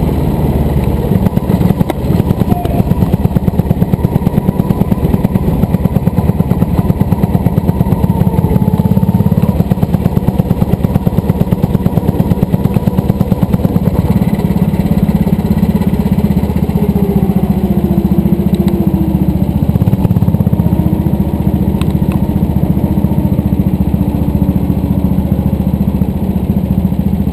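Go-kart engine running close to the microphone as the kart laps the track, with a rapid, even pulsing throughout. The sound eases a little about halfway through.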